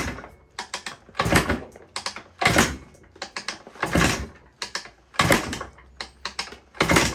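A 1974 Yamaha DT360A's 360 cc single-cylinder two-stroke engine kicked over repeatedly by its kickstarter against a compression tester, with the spark plug out and the carburettor off. There are about five loud kicks, roughly one every second and a half, with lighter mechanical clicks between them.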